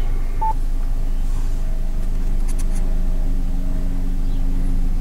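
Car engine idling with a steady hum, heard from inside the cabin. About half a second in, the Yaesu FT-857D transceiver gives one short beep as its TUNE button is pressed to start the ATAS-120A tuning cycle, and a few faint clicks follow a couple of seconds later.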